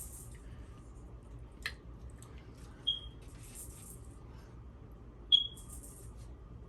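Quiet eating sounds at a table: faint mouth and food noises, a sharp click, and two short high-pitched pings, the second louder.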